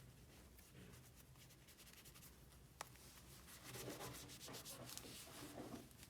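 Faint rubbing and scraping, with a single sharp click a little before the midpoint and soft handling knocks in the second half.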